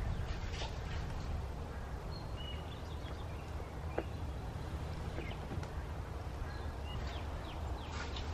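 Outdoor ambience: scattered short bird chirps over a steady low rumble of wind on the microphone.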